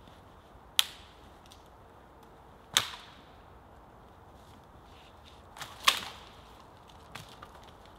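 Dead pine wood cracking and snapping sharply as a dead leaning pine stem is pushed and broken off: three loud cracks about 1, 3 and 6 seconds in, with a few smaller snaps after the third.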